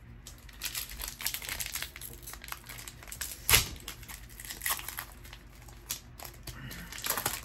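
Foil wrapper of a Pokémon TCG booster pack crinkling as it is handled and torn open, in irregular crackles, with one sharp, loudest rip about three and a half seconds in and another flurry of crinkling near the end.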